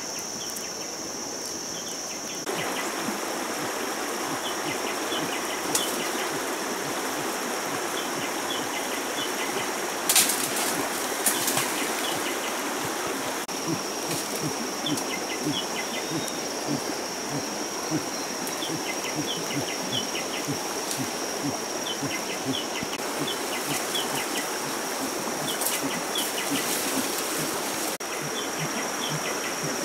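Forest ambience: insects droning on one steady high note over an even rushing background, with small bird chirps scattered through it. A few sharp cracks come about ten seconds in.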